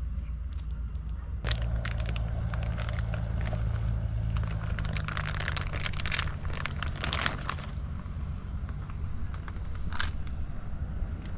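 Crinkling and rustling of plastic wrapping in irregular bursts, over a steady low hum that comes in about a second and a half in.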